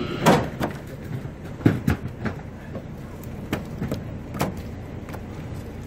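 Heavy moray eels dropped and handled into blue plastic fish crates on a steel sorting table: a series of irregular thuds, slaps and knocks, the loudest two near the start, over a steady low background noise.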